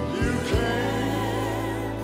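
Gospel song performed by a mixed vocal group with band accompaniment: the voices hold a sustained chord over bass and keyboards.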